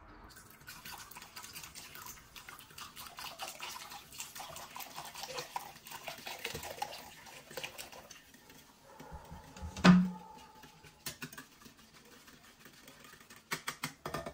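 Sparkling water poured from a plastic bottle into a glass bowl of yogurt, fizzing and crackling as a wire whisk stirs it. About ten seconds in comes one loud knock with a short ring, and a few quick clicks come near the end.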